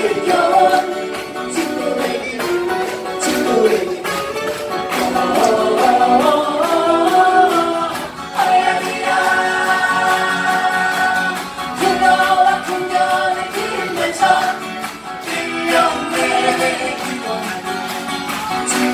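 Group of acoustic guitars strummed together while several of the players sing the melody in chorus, amplified through a PA.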